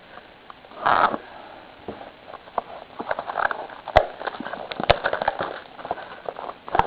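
A cardboard blaster box of baseball cards being opened by hand: a burst of crinkling about a second in, then a run of crinkles and sharp clicks, two of them standing out in the second half.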